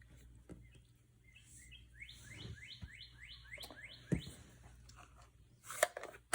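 A bird singing a run of about nine quick rising chirps, roughly four a second, lasting a little over two seconds. Light clicks and taps sound throughout, with the loudest knocks near the end.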